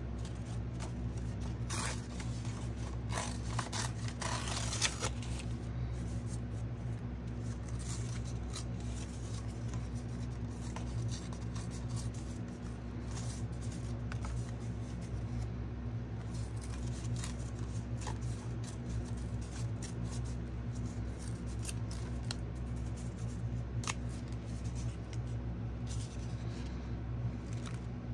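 Paper being handled for collage work: scattered rustles, scrapes and light ticks, busiest about two to five seconds in, over a steady low hum.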